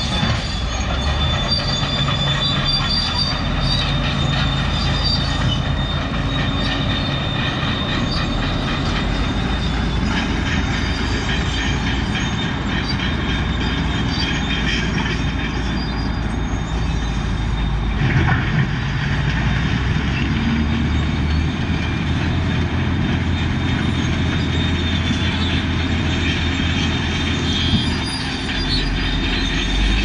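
Steady rumble and rattle of a moving motor vehicle, with a thin high whine through roughly the first third.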